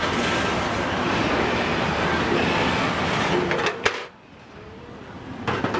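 Steady street background noise. About four seconds in there is a sharp clack, and after it the sound drops much quieter.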